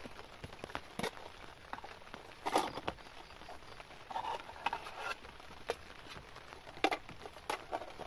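Scattered clicks, knocks and rustles of hands handling a hard plastic case and setting out a small folding camp gas stove.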